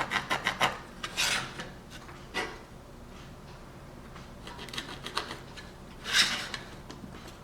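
Short scraping and rubbing strokes of a ruler and marking tool against a plastic blast gate during measuring and marking: a quick run of strokes at the start, single scrapes after about one and two and a half seconds, and the loudest one near the end.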